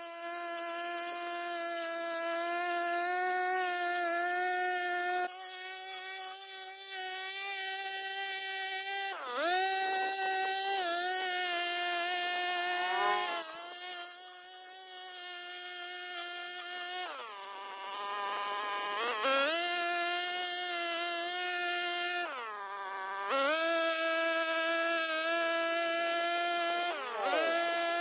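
Backpack brush cutter engine running at high speed. Its pitch dips and recovers several times as the cutter works through the weeds.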